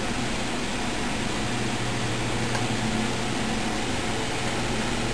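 Steady background hiss with a low, even hum underneath, unchanging throughout.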